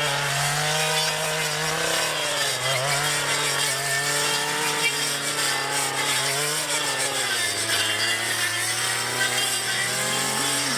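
Engine of a brush-clearing machine with a cutting blade attachment, running steadily under load while clearing paddock lines. Its pitch wavers up and down as the load changes.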